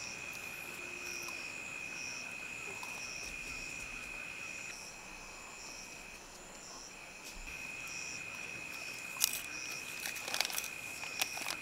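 Insects calling: one steady high-pitched trill with a second insect chirping in a slower, regular pulse above it. A few sharp clicks sound near the end.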